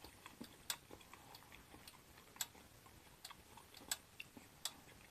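Shrimp shumai crackling faintly on a hot electric griddle plate: sparse, irregular sharp pops and ticks, one or two a second, some louder than others.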